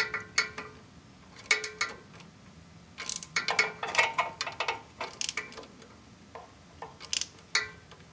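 Metallic clicks and clinks of a 10 mm socket driver tightening the lock nut on the governor arm of a Kohler V-twin engine. They come in irregular bunches of sharp, slightly ringing clicks.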